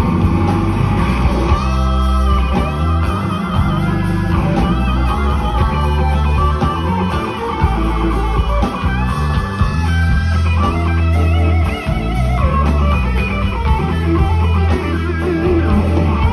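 Live blues electric guitar lead with string bends and vibrato, played loud through an amplifier over a steady bass line and drums.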